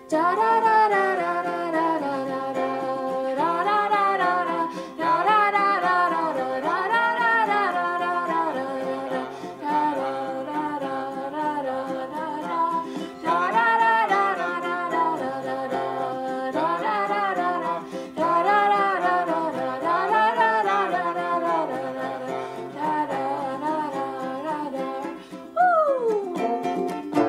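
Live song: a voice singing a wavering melody over ukulele accompaniment, with steady held low notes beneath. Near the end the pitch slides steeply down.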